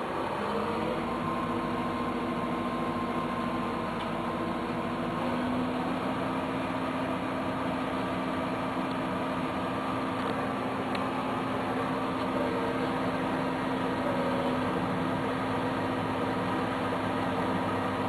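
A vehicle engine running steadily under a constant drone, its pitch climbing slightly over the first few seconds and then holding even.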